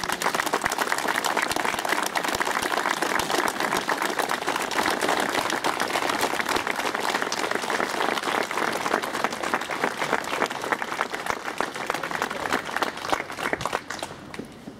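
Crowd applauding: dense, steady clapping that thins out and fades near the end.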